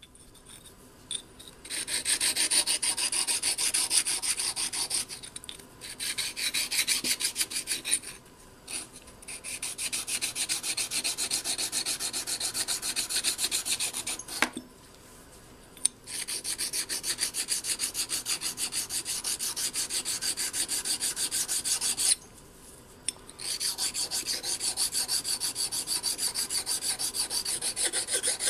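Steel parallel-clamp jaw being polished by hand, rubbed back and forth in quick, even, rasping strokes across a sheet on the bench. The strokes come in five runs with short pauses between them.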